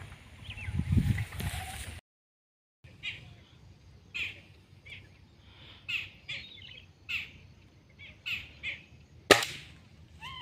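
Small birds chirping repeatedly in short high calls, then a single sharp crack of an air rifle shot about nine seconds in. A low rumble of wind or handling on the microphone comes in the first two seconds.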